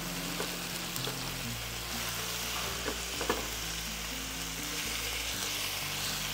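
Chicken breast pieces sizzling steadily as they fry in a little oil in a ridged grill pan, with a few light clicks of metal tongs against the pan as the pieces are turned.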